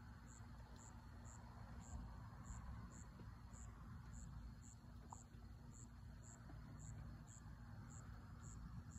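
Faint insect chirping: short, high chirps repeating steadily about twice a second, over a faint low rumble.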